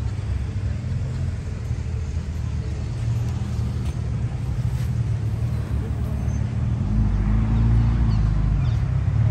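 A vehicle engine idling with a steady low rumble, a deeper rumble coming in for a second or two about seven seconds in.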